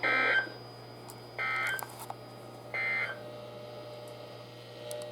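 Emergency Alert System end-of-message code from a NOAA Weather Radio broadcast: three short bursts of warbling data tones, about a second and a half apart, signalling that the alert message is over.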